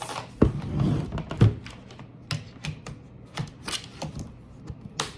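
Hard plastic laptop case being pressed onto a laptop: two solid knocks near the start, then a run of small plastic clicks and taps as the shell is fitted.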